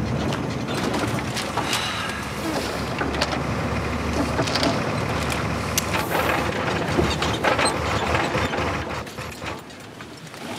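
Truck cab rattling and clattering as it drives over a bumpy dirt track, many quick knocks and clicks over a low engine rumble, easing off near the end.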